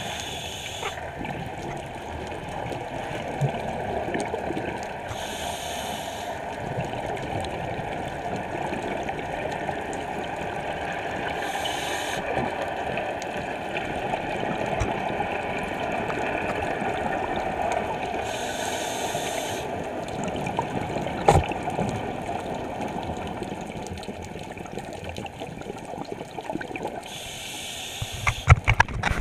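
Steady underwater water noise from a scuba dive, with a hiss of exhaled regulator bubbles about every six seconds, in rhythm with the diver's breathing. A few sharp knocks come near the end.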